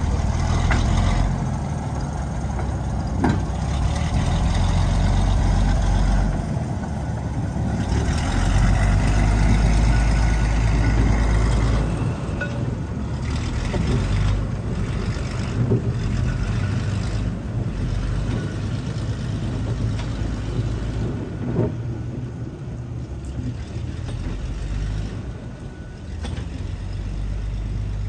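A Brill interurban rail car moving a coupled Whitcomb diesel switcher along the track: a heavy low drone that swells in two long surges and eases off after about twelve seconds, over wheels rumbling on rail, with a few sharp clicks.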